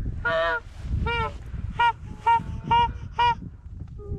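Geese honking: a series of about six short, separate honks.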